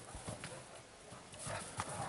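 Wolves' paws thudding and crunching in snow as they run and wrestle: irregular footfalls that grow louder near the end.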